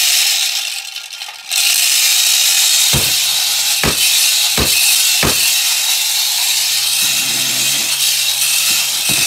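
A power tool running with a loud, steady hissing whine over a low hum. It eases off about a second in and then runs steadily again. Four evenly spaced deep thumps come around the middle.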